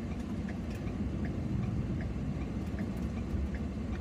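Steady road and engine rumble inside a 2014 Ford Econoline van's cabin, with a turn signal ticking about twice a second.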